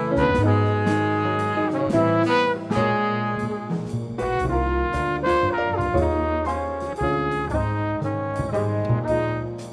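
Hard-bop jazz quintet playing: trumpet and saxophone state a melody together over piano, plucked double bass and drums, with steady cymbal strokes.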